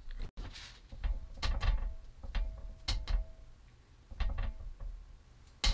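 A series of metallic clanks and knocks, a few of them leaving a brief ring, from the venturi burner's brass fittings and braided steel gas hose being handled against the steel body of an air-compressor-tank forge.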